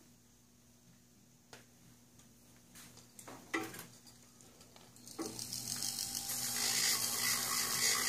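A few faint clicks over near silence. About five seconds in, a Dremel rotary tool on a flexible shaft starts up and grinds with a coarse wheel against enamel, a high hiss that grows steadily louder as the wheel sands burrs and sharp edges off the back of an enamelled copper piece.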